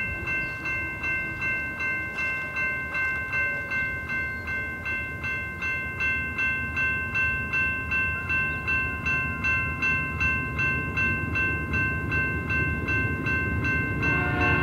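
Level-crossing warning bell ringing in rapid, even strikes, about two to three a second, over the low rumble of an approaching freight train. Near the end a locomotive horn joins in.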